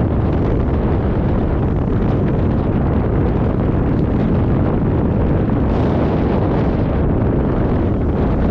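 Steady wind buffeting on the microphone, a continuous low rumbling rush.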